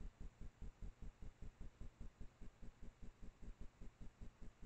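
Faint, evenly spaced low-pitched pulsing, about six beats a second, over a faint steady hiss: electrical self-noise of an infrared trail camera recording in a quiet forest at night.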